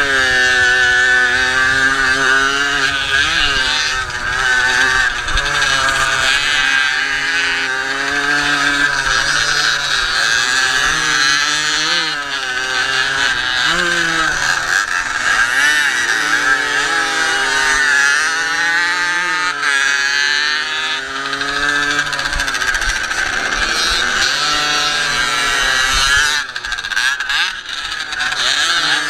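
Onboard sound of a Jawa Pionier 50 cc two-stroke single-cylinder engine racing flat out, its pitch rising and falling over and over as the rider accelerates, shifts and backs off for corners.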